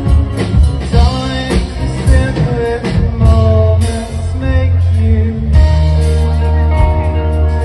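A rock band playing: a steady drum beat with a heavy bass line and guitar, and a voice singing.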